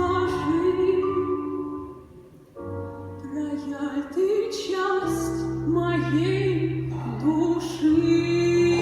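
A woman singing a slow melody with vibrato over musical accompaniment, with a brief pause about two seconds in and a long held note near the end.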